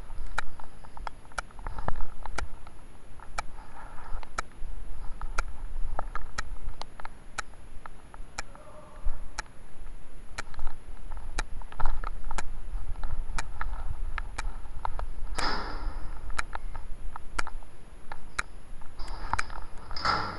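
Irregular sharp clicks over a steady low rumble, with a few brief muffled noises.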